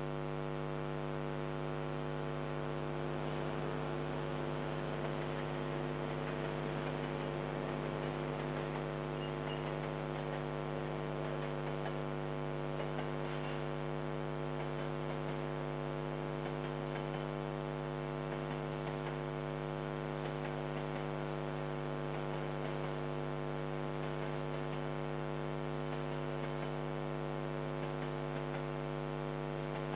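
Steady electrical mains hum with many evenly spaced overtones, the buzz of a security camera's audio line; it does not change and masks any sound from outside.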